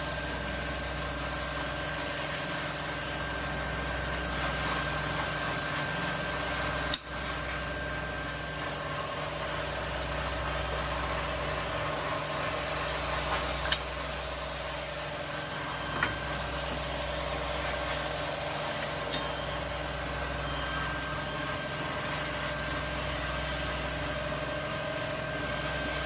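Steady mechanical hum of running machinery, with a low throb that swells and fades every few seconds. A couple of short metallic clicks come through about halfway, as a new brake pad is pressed into the caliper.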